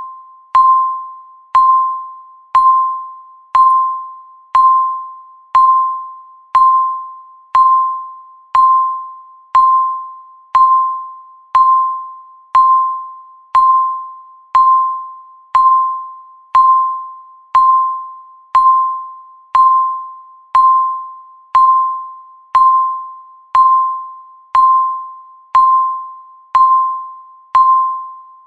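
Countdown timer's tick sound, once a second: each tick is a sharp click with a brief ringing note that fades before the next, keeping an even beat.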